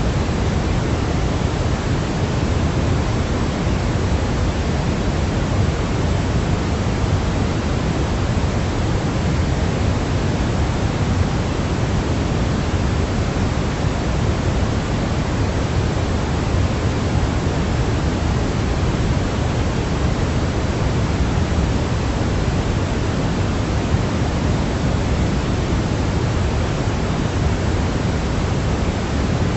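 Steady white noise for lulling a baby to sleep: an unchanging hiss with its weight toward the low end, giving a soft rushing sound with a deep rumble underneath.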